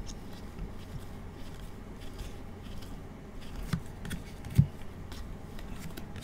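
Chrome trading cards being slid one by one off a stack in gloved hands: faint scattered clicks and scrapes over a low steady hum, with a louder tap a little after four and a half seconds.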